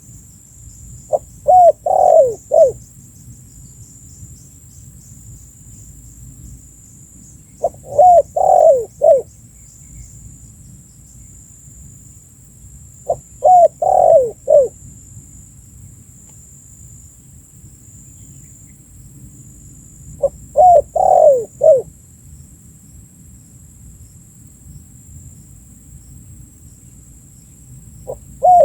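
Spotted dove (tekukur) cooing: a short phrase of a few quick, falling coos, repeated about every six to seven seconds, four times in full and once more at the very end.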